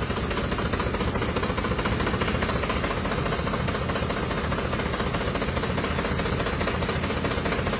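Ford 5.4-litre Triton V8 idling in gear, running steadily but shaking, rattling and misfiring with a knock. Oil pressure has fallen to 18 psi hot, a sign of a worn-out engine that the mechanic judges needs replacing.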